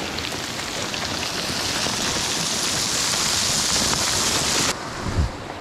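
Small mountain creek rushing over stones close by, a steady hiss that slowly grows louder and then drops away suddenly about three-quarters of the way through, followed by a few soft knocks of footsteps on loose gravel.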